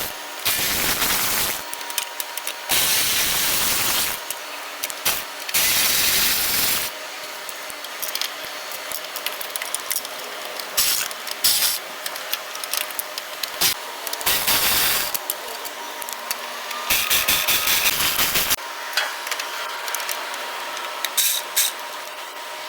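Small bolts being backed out with an 8 mm socket tool: repeated spells of whirring and quick clicking, each a second or two long, with short pauses between.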